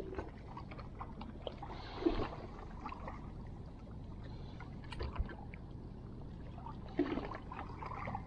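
Shallow sea water lapping and trickling among shore rocks, with a few soft splashes about two, five and seven seconds in, over a low steady rumble.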